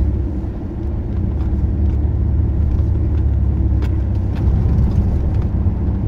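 Steady low rumble of engine and road noise inside a moving car's cabin, with a few faint ticks.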